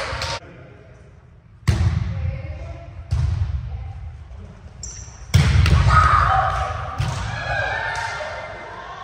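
Volleyball being struck during a rally: four sharp hits about a second and a half apart, the third the loudest, each echoing in the gym, with players' voices calling out after the third hit.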